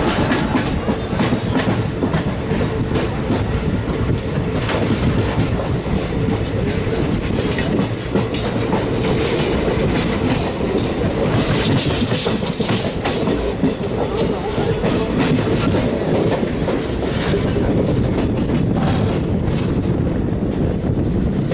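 Kerala Express passenger train rolling by, its wheels rumbling and clacking steadily over rail joints, with a faint steady hum underneath.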